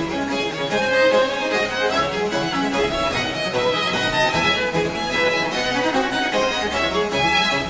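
Music: a string piece led by violin, with bowed strings playing a run of sustained notes.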